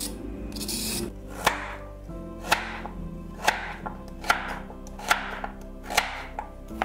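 A vegetable peeler scraping down a carrot for the first second, then a chef's knife chopping the carrot against a bamboo cutting board: about seven sharp chops, roughly one a second, over soft background music.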